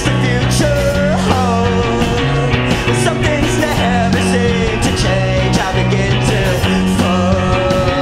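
Rock band playing live: electric guitars and drums, with a man singing lead over a steady beat.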